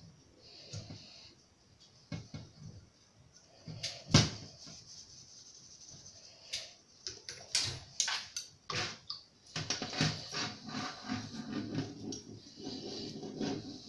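A bristle brush scrubbing a black-powder revolver frame in soapy water in a stainless steel sink, with water splashing and irregular sharp knocks of metal handling. The scrubbing gets denser and more continuous in the last few seconds.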